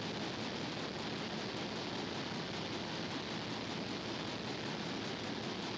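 Steady background noise of running machinery: an even rush with no distinct knocks, tones or changes.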